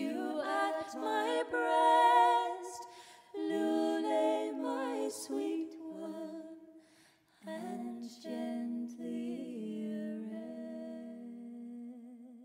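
Three female voices singing unaccompanied in close three-part harmony, in slow held notes. The last chord of the carol dies away near the end.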